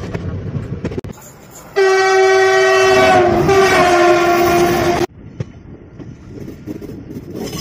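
Train horn held for about three seconds, loud and steady, dropping slightly in pitch partway through, then cutting off suddenly. Before and after it comes the rumble of a train running on the rails, with scattered clicks.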